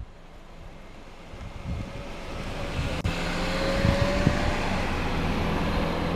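A car driving past close by, its engine and tyre noise growing steadily louder over the first few seconds and then holding, with a sharp click about three seconds in.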